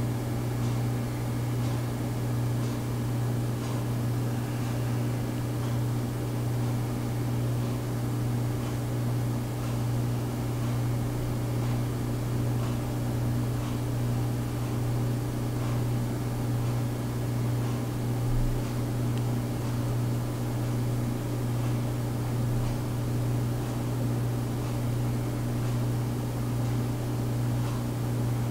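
A steady low hum with a hiss over it, unchanging throughout.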